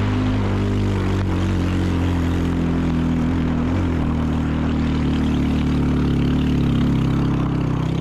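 Motorbike engine running steadily under load as the bike is ridden, its note shifting slightly about halfway through.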